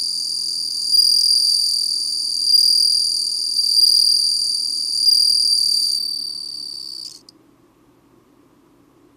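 Japanese bell cricket (suzumushi) singing: a high, ringing, continuous trill that swells about once every second and a half, then stops abruptly about seven seconds in.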